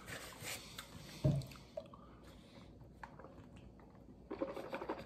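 Soft rustling of a food wrapper and a dull knock about a second in, then a run of gulps near the end as water is drunk from a plastic shaker bottle.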